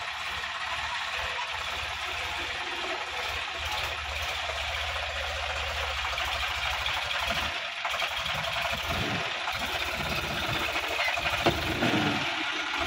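Sonalika DI-50 RX tractor's diesel engine running under load as the tractor pulls through deep mud, a steady low pulsing rumble under a steady hiss. The sound grows louder and busier over the last few seconds as the tractor climbs the bank.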